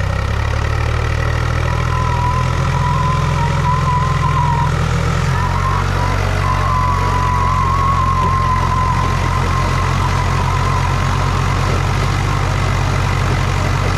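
A Mahindra Thar's 2.2-litre diesel and a 42 hp Swaraj 735 tractor's diesel engine running hard under full load as they pull against each other. A steady low engine drone runs throughout, with a high, wavering whine over it from about two seconds in to about eleven seconds.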